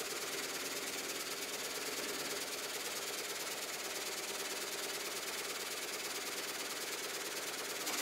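Vertical log frame saw (gang sawmill) running steadily, its frame of upright blades sawing through a log fed between spiked rollers.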